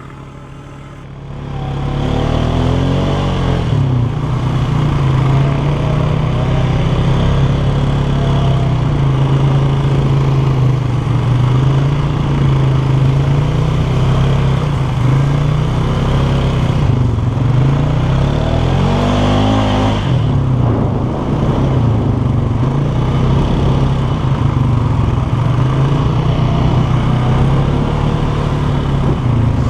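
Polaris 450 ATV engine running while riding. It comes in about a second and a half in, and its pitch dips and climbs again a few times as the throttle eases off and reopens.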